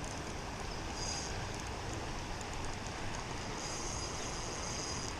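Steady rush of fast-flowing river water, with an insect's high trill coming in briefly about a second in and again over the second half.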